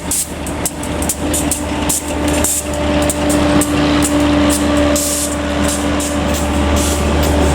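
A train rolling slowly through the station, its wheels clicking irregularly over rail joints, fading out after about five seconds, over the steady hum of a diesel locomotive engine, with a steady tone coming in about a second in.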